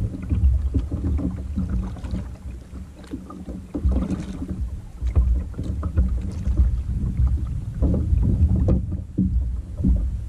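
Double-bladed kayak paddle strokes dipping and splashing in the water, over a heavy low rumble of wind buffeting the microphone.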